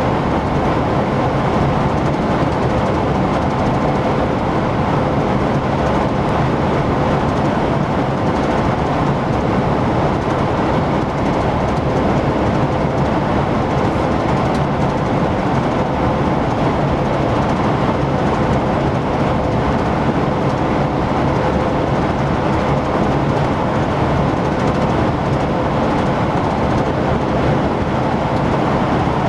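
Steady running noise of a vehicle at cruising speed on the road: tyre and wind noise with a low, even engine drone.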